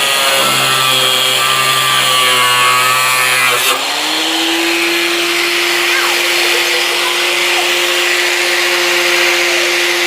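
Electric cutting tool running at a steady whine, then about four seconds in its pitch shifts and a harsh hiss sets in as it cuts into a car door hinge.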